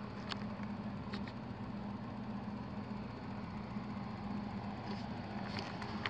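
Motorized attic ventilation fan running with a steady low hum, with a couple of faint ticks about a second apart early on.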